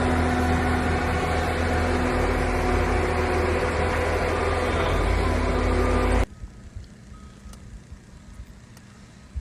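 A motor vehicle running: a steady engine drone with heavy rushing noise, which cuts off abruptly a little over six seconds in, leaving only faint background sound.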